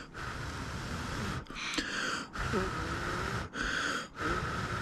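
A person blowing on a freshly soldered wire joint to cool the solder: about five breathy puffs of air in a row, the first the longest.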